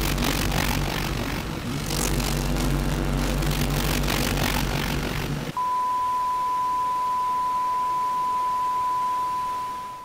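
A crackling, rumbling noise with a low hum cuts off about five and a half seconds in. It is replaced by a steady, single-pitched broadcast test tone, the reference tone played with colour bars, which signals the station going off the air and fades out at the end.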